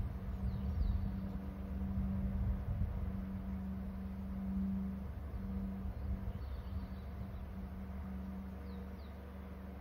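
Steady low hum over a low rumble, with a few faint, short high chirps: a pair about half a second in, some near the seven-second mark and a pair near the end.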